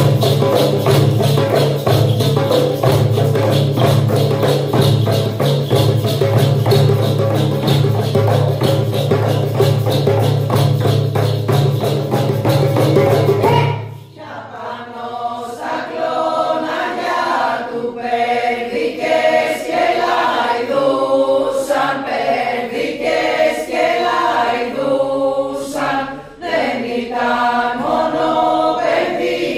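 Group singing of Epirote New Year carols (kalanta) in two voice parts, over a low held drone, with hand frame drums beating a steady rhythm. About halfway through, the drums and drone stop abruptly and the voices carry on alone in short phrases.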